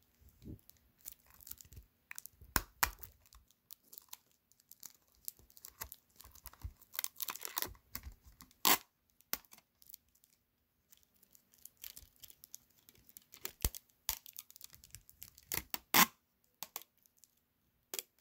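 Clear sticky tape being pulled off a desktop dispenser and torn off, in irregular scratchy crackles. Two sharper, louder snaps stand out, one about halfway and one near the end.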